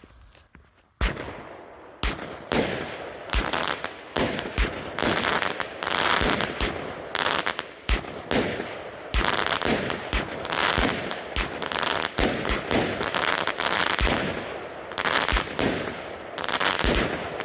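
A 16-shot consumer firework cake firing. After about a second of quiet, shots go off in quick succession, roughly one or two sharp bangs a second, with a continuous hiss and crackle between them.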